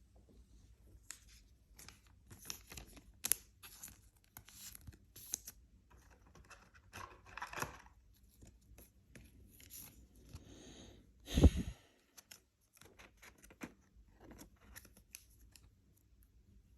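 A trading-card pack wrapper is torn and the cards are handled, with scattered short rustles and clicks. One loud thump comes about two-thirds of the way through.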